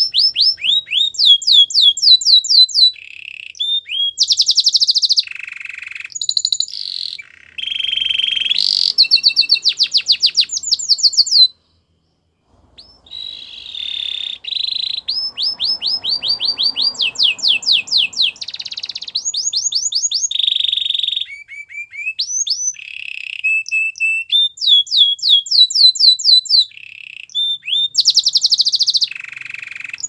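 Domestic canary singing a long, loud song of fast trills: runs of quick falling notes alternating with dense rolled phrases, broken once by a pause of about a second partway through.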